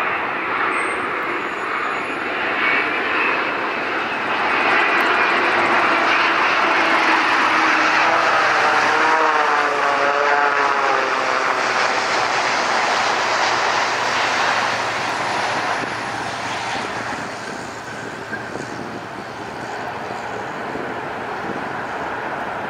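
Boeing 787 jet airliner with Rolls-Royce Trent 1000 engines, landing. A loud, steady jet rush swells as it passes close, with a wavering hum about ten seconds in. It then eases off as the plane rolls away down the runway.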